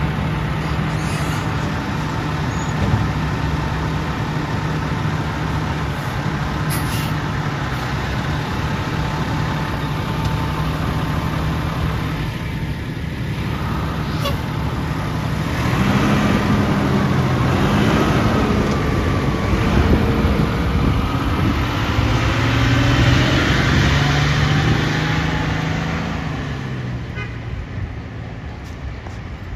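Fire engine's diesel engine running close by, then pulling away about halfway through: the engine note grows louder and rises and wavers as it accelerates, then fades as the truck moves off near the end.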